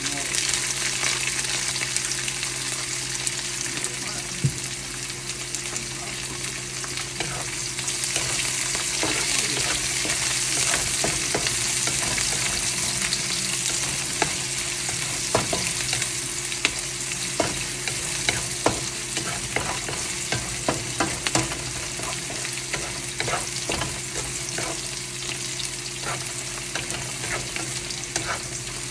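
Food frying and sizzling in a hot pan, with frequent short clicks and scrapes of a utensil against the pan as it is stirred. A steady low hum runs underneath.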